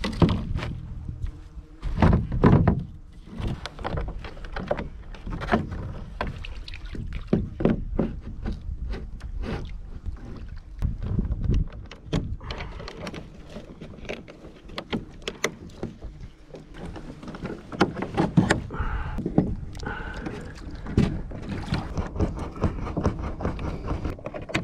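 Repeated knocks, clunks and rattles of homemade plastic-pipe stabilizer arms being fitted into brackets on a plastic Pelican kayak's hull and pinned in place with metal pins.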